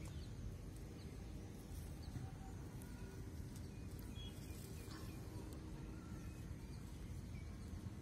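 Outdoor field ambience: a steady low rumble with faint, scattered bird chirps.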